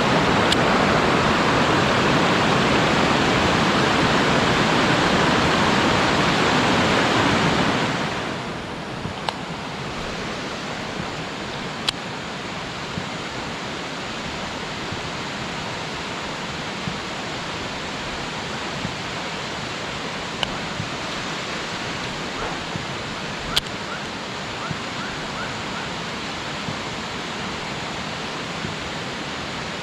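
Steady rush of falling water from a waterfall stream. It drops to a noticeably quieter, even rush about eight seconds in, with a few sharp clicks scattered through it.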